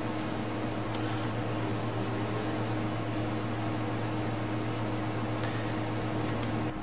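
A steady low hum with an even hiss, like a fan or small appliance running, with two faint ticks about a second in and near the end.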